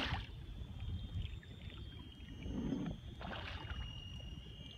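Water lapping and sloshing against a kayak's hull over a low wind rumble on the microphone, with a louder swish of water from about two and a half to three and a half seconds in.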